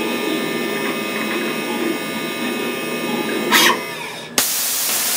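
DATRON M8Cube CNC mill's high-speed spindle running with a steady whine while an engraving tool cuts into the skin of a butternut pumpkin turning on the fourth axis, with a short burst of noise about three and a half seconds in. About four seconds in the cutting stops, and a loud hiss starts suddenly and runs for about a second.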